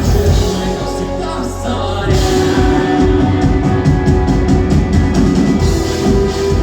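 Rock band playing live: guitars, bass and drums at full volume. The mix thins for a moment about a second in, and the whole band comes back in around two seconds, with a quick run of drum hits after that.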